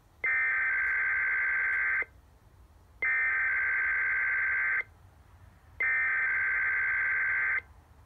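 Sage EAS ENDEC sending the SAME digital header of an Emergency Alert System Required Weekly Test: three identical buzzing data bursts, each nearly two seconds long, about a second apart.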